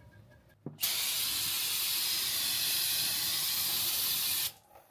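Aerosol spray can sprayed in one continuous hiss of about three and a half seconds, starting a little under a second in and stopping abruptly.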